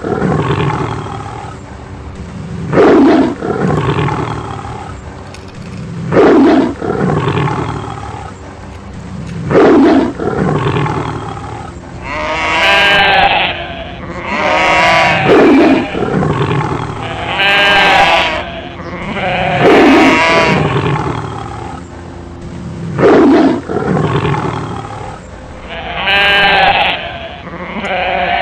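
A lion roaring again and again, a long call every three seconds or so. From about twelve seconds in, sheep bleat in wavering cries, alternating with more roars. This is typical of a lion-attack sound effect laid over a toy scene.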